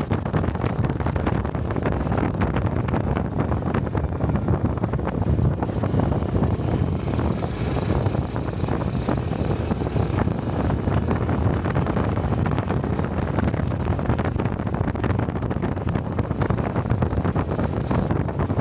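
Honda Cub 125 cc single-cylinder motorcycle engine and exhaust running steadily while riding, with wind rushing over the helmet-mounted microphone.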